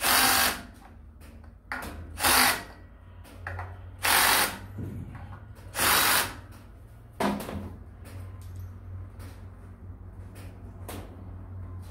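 Cordless drill-driver run in four short bursts about two seconds apart, driving and tightening screws into an aluminium mounting plate, followed by a single click.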